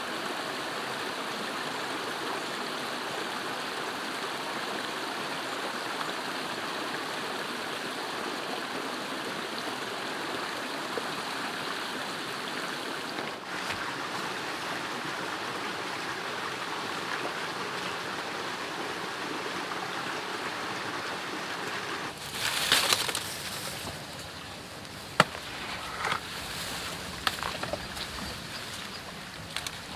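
Small rocky stream running over stones, a steady rushing. About 22 seconds in it fades down, and short rustles and snaps follow as leafy plants are handled and picked.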